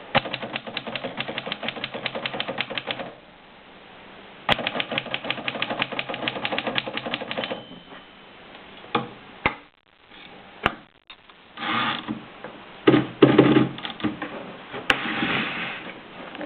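1930 Royal P manual typewriter being typed on: two quick runs of key strikes at about ten a second, a brief ring near the middle, then a few single clicks and louder mechanical clattering toward the end.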